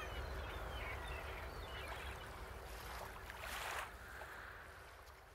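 Faint waterside ambience of moving water over a steady low rumble, slowly fading out.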